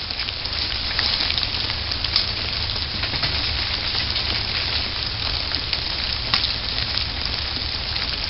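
A dense, steady patter of ice in ice-glazed tree branches: a hiss full of small sharp ticks and clicks, over a low rumble.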